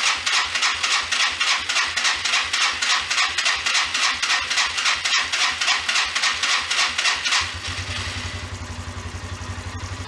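1993 Yamaha Riva 125 scooter's electric starter cranking the engine in a fast, even rhythm for about seven seconds; the engine then catches and settles into a steady idle. This is its first start after sitting over winter.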